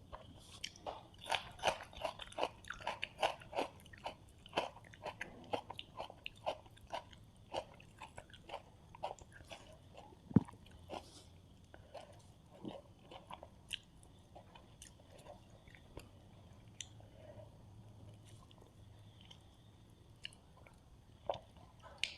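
Close-miked chewing and biting of a rice meal with fried fish and curry: quick chews at about three a second for the first several seconds, then slower, sparser chewing, with one sharp click a little past the ten-second mark.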